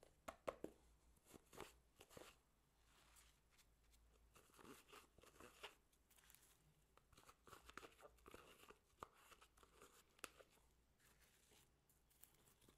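Hands squishing and scooping slime and foam-bead floam, making faint, irregular crackles and sticky clicks.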